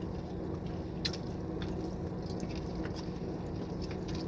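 Someone chewing food, with a few faint crunches, over a steady low background rumble.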